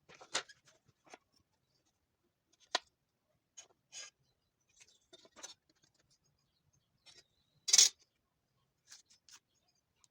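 Pieces of wood being handled: scattered light knocks, clicks and short scrapes, the loudest a brief scrape about three-quarters of the way through.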